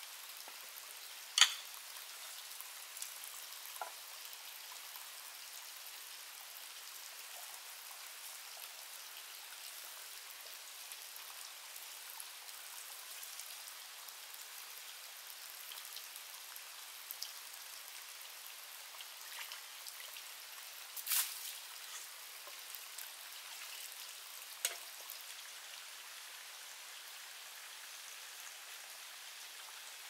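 Steady rain falling, with a few sharp clicks standing out, the loudest about a second and a half in.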